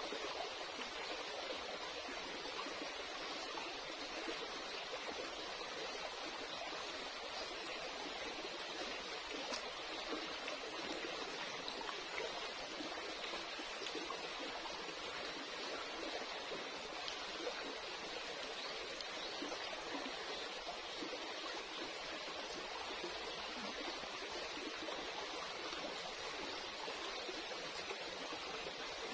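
A shallow stream running over rocks: a steady, even wash of water that does not change.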